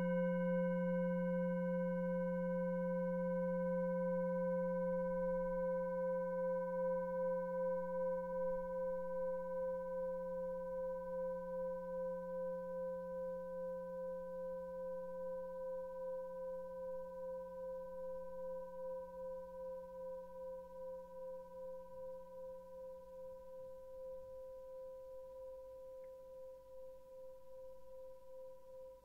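An 18.5 cm seven-metal singing bowl ringing out after a single strike: a low hum with several clear higher overtones, slowly fading with a slow, regular wavering.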